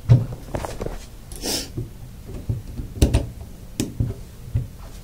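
Scattered clicks and knocks of the black nose parts and piston of a Hilti powder-actuated nail gun being fitted and locked back together by hand, with a short scraping rustle about a second and a half in.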